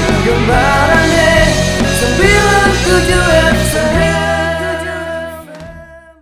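Background music with singing over a steady bass line, fading out over the last two seconds.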